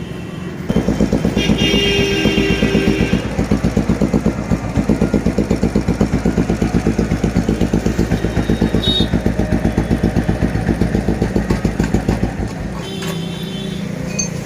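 Royal Enfield Bullet single-cylinder motorcycle engine catching about a second in and running with an even thump, roughly six beats a second, on freshly set contact-breaker points. It cuts out near the end.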